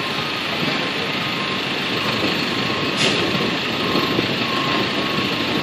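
Steady truck engine noise with a vehicle's reversing alarm beeping repeatedly, and a short hiss about three seconds in.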